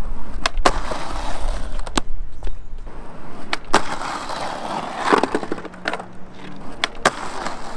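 Skateboard wheels rolling on concrete, then a pop and the Theeve titanium trucks scraping briefly along a steel ledge edge, with sharp clacks as the board hits the ledge and comes off. The trucks stick rather than slide: they don't grind on regular steel.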